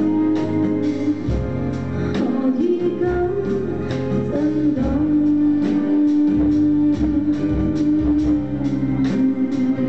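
Live band music: a violin plays a sliding lead melody, holding one long note through the middle, over keyboard chords and a steady drum beat.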